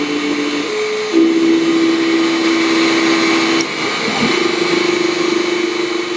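Neje Master 7W diode laser engraver running: its stepper motors give a steady whine that jumps to a new pitch every second or few as the laser head changes speed and direction, over a steady hiss.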